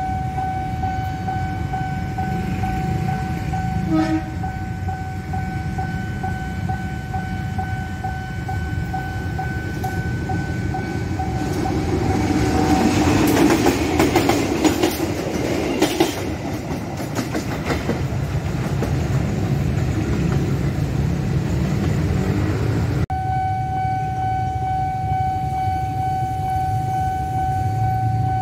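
Level-crossing warning alarm sounding a steady electronic tone while a CC201 diesel-electric locomotive approaches. The locomotive passes close by from about 12 to 17 seconds in, its engine and wheels clattering over the rail joints and drowning out the alarm. The alarm tone is heard again near the end.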